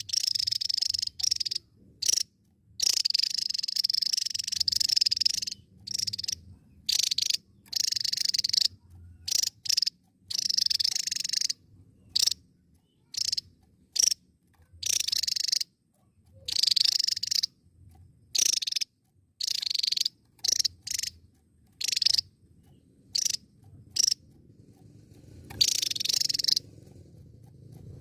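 Javan tesia singing: a run of high-pitched song phrases, each about half a second to a second and a half long, one after another with short gaps between them.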